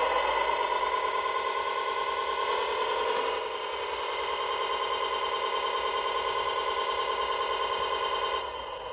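Electric motor and gears of a radio-controlled model running with a steady whine. The pitch edges up over the first three seconds, then holds and cuts off near the end.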